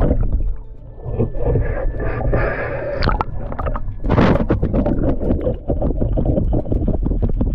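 Scraping and knocking in a gigging boat, with water sounds, over a steady low rumble.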